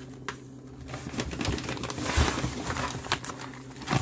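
Plastic-laminate MRE meal pouches being handled in a cardboard box: rustling and crinkling that swells in the middle, with a few sharp clicks and taps from the pouches knocking together near the start and near the end.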